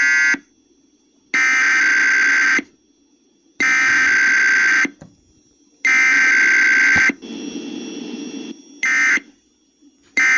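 Emergency Alert System (SAME) digital data bursts from a Required Weekly Test: harsh, buzzy electronic screeches about a second long, repeated three times with about a second between them. Near the end come two much shorter bursts, which are the start of the end-of-message signal.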